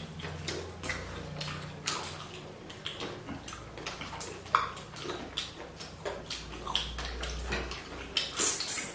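Close-up eating sounds: wet chewing and mouth smacks from someone eating chicken thukpa noodle soup, a dense run of short sharp clicks with a wet edge.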